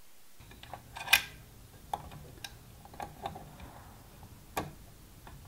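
Light clicks and ticks of pliers and wire being handled at a metal amplifier chassis: a handful of short, sharp clicks at uneven spacing, the loudest about a second in.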